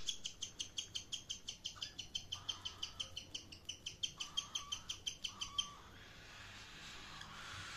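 Cockatiel chirping: a fast, even run of short high chirps, about five or six a second, that stops abruptly about two-thirds of the way through. A faint steady hiss follows.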